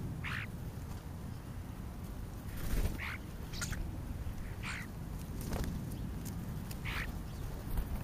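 European starlings calling at a feeding pile: about five short, harsh calls spaced a second or more apart, over a steady low outdoor rumble.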